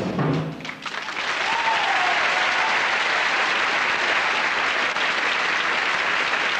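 Marching-band drumming cuts off in the first half-second, then a studio audience applauds steadily.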